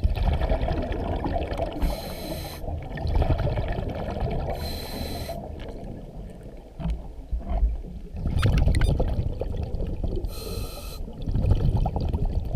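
Scuba diver breathing through a regulator underwater: short hissing inhalations with a whistling tone about every three seconds, between longer stretches of low bubbling exhalations.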